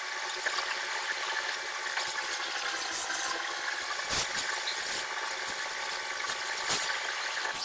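Oxy-fuel cutting torch hissing steadily as it cuts through a steel tie rod end. Two brief knocks come through the hiss, about four seconds in and again near the end.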